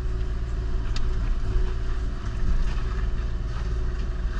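Kubota KX040-4 compact excavator's diesel engine and hydraulic Indeco mulcher head running steadily, a constant low drone with a steady hum, and a sharp click about a second in.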